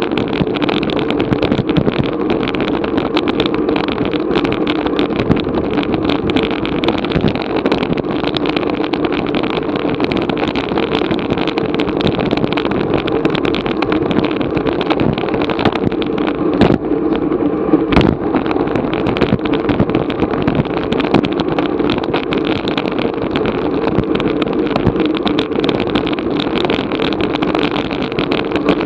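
Steady rush of wind and road noise on a bicycle-mounted action camera during a bike race, with two sharp clicks about two-thirds of the way through.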